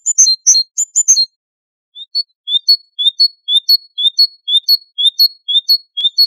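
Great tit singing. It starts with a quick run of high chirps, then after a short pause a two-note phrase, a rising note followed by a higher clipped one, repeated about twice a second.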